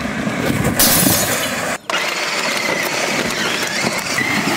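Battery-powered Power Wheels Grave Digger ride-on monster truck driving on concrete, its electric motors and plastic gearboxes grinding with a ratcheting sound, while the cardboard boxes it pushes scrape and tumble. There is a brief gap in the sound just before two seconds in.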